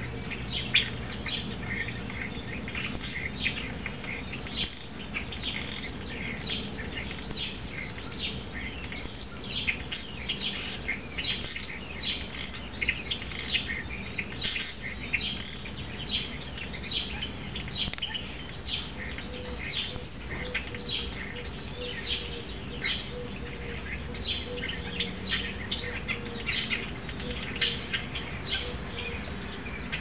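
Small birds chirping repeatedly: short, high chirps, several a second, over a low steady background hum.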